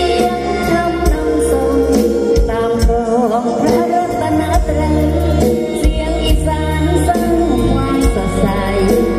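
Live mor lam band music played loud through a stage PA: a steady bass beat, with a voice singing in a wavering pitch.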